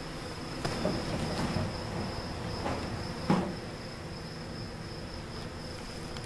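Honey bees buzzing as they fly around a newly installed hive, with a louder close pass about three seconds in. A thin, steady high-pitched tone sounds behind them throughout.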